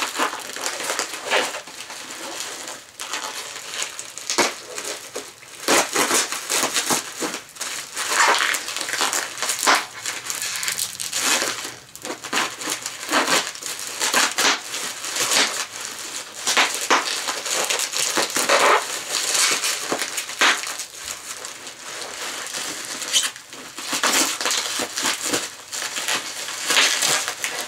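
Plastic packaging being crinkled and pulled apart by hand, a continuous irregular crackle and rustle.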